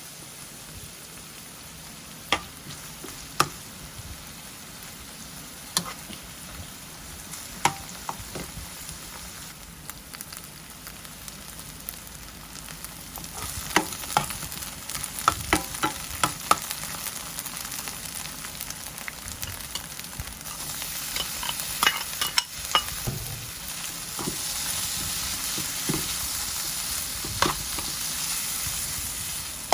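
Food sizzling in a frying pan while being stirred, with a spatula knocking and scraping against the pan. The sizzle gets louder partway through.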